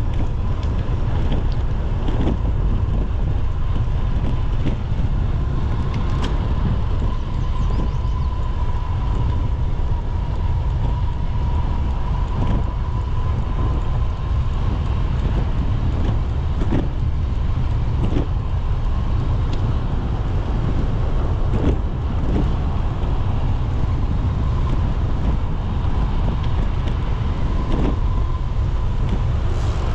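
Wind buffeting the microphone and road noise while riding a bicycle, with a steady high whine throughout and scattered clicks and knocks.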